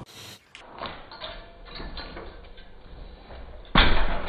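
Light rattling and clicking of a white metal baby gate as a cat pushes against it. Near the end a much louder sound starts abruptly and carries on.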